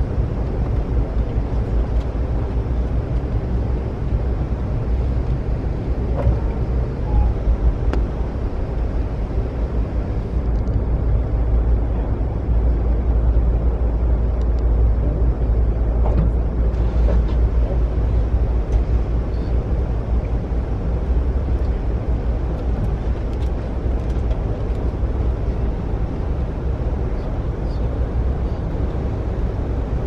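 Amtrak passenger train running, heard from inside the carriage: a steady low rumble of wheels on rails with a few faint clicks.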